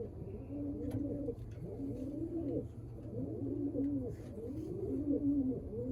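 Several racing pigeons cooing, their low rolling coos overlapping and repeating about once a second, over a low steady hum.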